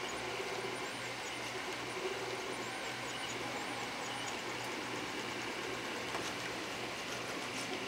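Stepper motors of a half-scale Printrbot Simple 3D printer whirring as it prints a gear at a raised print speed. The motors hum in a regular pulsing rhythm as the print head makes short repeated moves.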